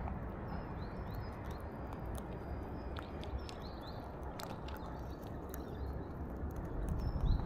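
Steady low background noise with faint, short, high bird chirps and scattered sharp clicks, the low noise getting louder near the end.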